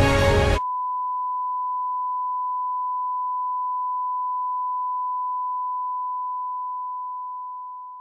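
Music cuts off abruptly about half a second in, replaced by a single steady beep: the pure test tone that accompanies TV color bars, signalling a station off the air. The tone holds level and fades out near the end.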